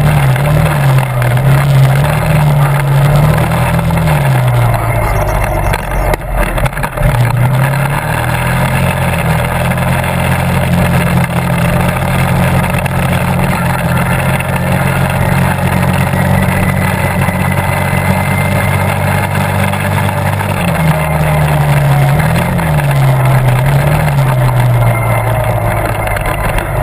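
Quad (ATV) engine running as it is ridden along a bumpy trail. Its pitch rises and falls with the throttle near the start and again near the end, and holds steady in between.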